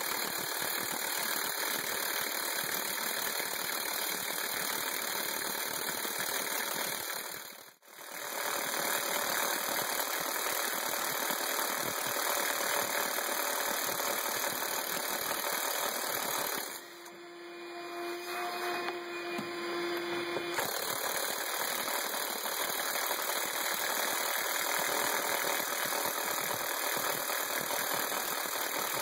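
DeWalt cordless impact wrench hammering an impact-rated hole saw through a steel enclosure top of two 1/8-inch layers. The drilling stops for a moment about eight seconds in and drops off for a few seconds just past halfway before resuming.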